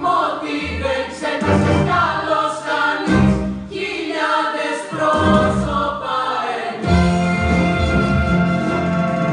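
A choir singing with a military band's accompaniment, the voices carrying the melody over a steady bass line.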